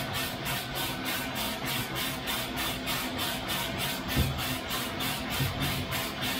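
Loring 15k Falcon coffee roaster running early in the roast, with a batch of beans tumbling in its rotating drum: a rapid, even, rhythmic swishing over a steady machine hum. A single low thump comes about four seconds in.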